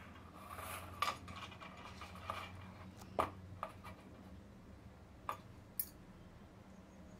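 A few light, scattered clinks and taps of a metal knife against a ceramic plate as steamed idlis are set down on it, over a faint low hum.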